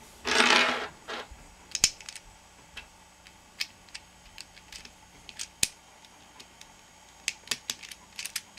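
Plastic Holey Megaminx puzzle pieces clicking as they are picked from a pile and snapped in between the centres around the core: scattered sharp clicks, with a louder rustle lasting about half a second near the start.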